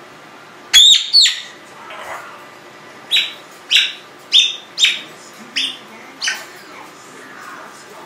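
Congo African grey parrot calling: two loud whistles that sweep up in pitch about a second in, then a run of six short, sharp, high chirps about two-thirds of a second apart.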